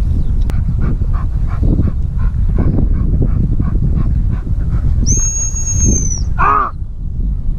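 Over a steady low rumble of wind and walking, a high-pitched gundog whistle sounds once, a single flat blast held for just over a second about five seconds in. It is followed at once by a short rising-and-falling yelp from the spaniel.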